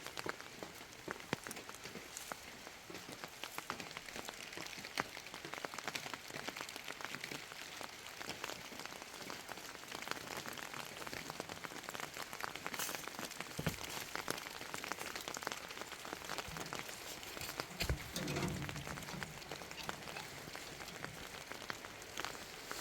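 Rain pattering: a dense, irregular crackle of small drops. Two dull thumps cut through it, the stronger one about eighteen seconds in.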